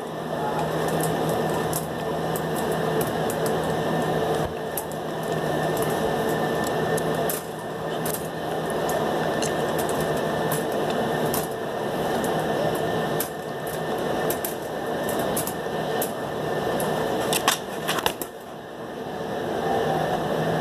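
Dog biting and mouthing at the bars of a wire crate: scattered sharp clicks and rattles of teeth on the metal, over a steady low noisy sound with short breaks every few seconds.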